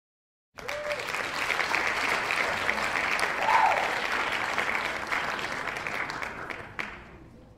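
A crowd clapping, with a short cheering voice about halfway through. It starts suddenly about half a second in and fades out near the end.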